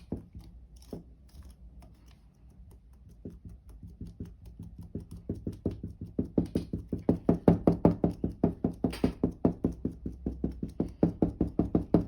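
Rapid rhythmic knocking, about five a second, from stirring slime in a bowl. It starts faint and grows louder a few seconds in.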